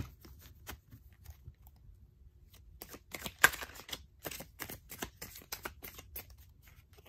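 Tarot cards being handled and shuffled by hand: a run of quick, irregular card flicks and snaps, coming in clusters a little under three seconds in and again through the middle to late part.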